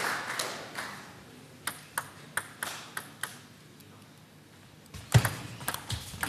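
Table tennis ball bounced on the table about six times, slightly quicker each time, as the player readies his serve, with applause dying away at the start. After a short pause, a louder hit about five seconds in starts a quick run of ball-on-bat and ball-on-table clicks as the rally begins.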